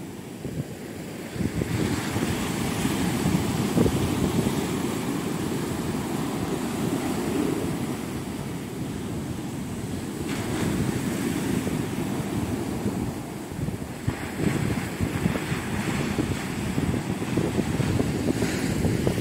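Sea waves breaking and washing up on a beach, with wind buffeting the microphone. Surf hiss swells up about a second and a half in and again about ten seconds in.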